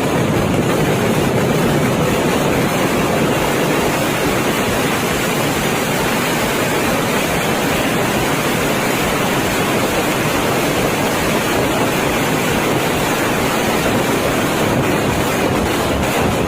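Kerala temple-festival fireworks (vedikkettu) in a dense barrage, the bangs so close together that they merge into one loud, steady din with no separate reports.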